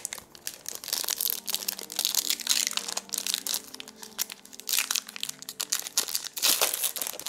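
Foil trading-card pack wrapper crinkling as it is torn open and peeled back by hand, a dense run of irregular crackles.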